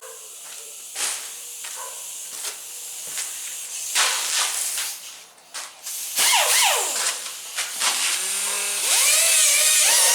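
Die grinder spinning a 3M Roloc surface-conditioning disc across the deck surface of a 5.3 LS engine block, cleaning it for a gasket. It starts and stops several times, with a hiss and a whine that falls and rises in pitch. It is loudest and steady near the end.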